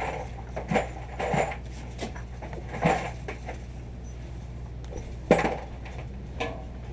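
Light metallic clinks and knocks of gear being handled, five or so spaced irregularly over a steady low hum.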